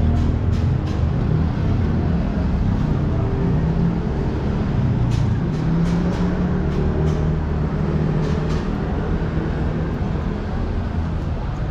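City street traffic: motor vehicle engines running close by, a steady low drone, with scattered light clicks over it.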